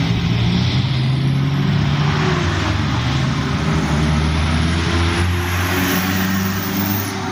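A motor vehicle's engine running close by, a low hum that drifts slightly in pitch under a steady loud rush of engine and road noise.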